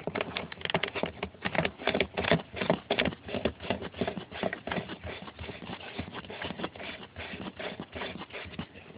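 Hands handling and screwing a quick-disconnect coupler fitting onto a pressure washer spray wand: a steady run of irregular small clicks, taps and rubbing, several a second.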